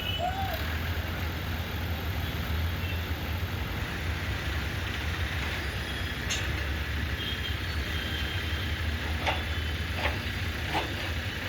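Steady low rumble of vehicle engines and road traffic, with a few sharp knocks in the second half.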